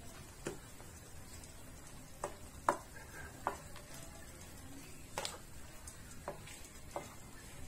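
A metal spatula stirring spiced cauliflower in a pan, with a few irregular sharp clinks and scrapes as it knocks against the pan's sides.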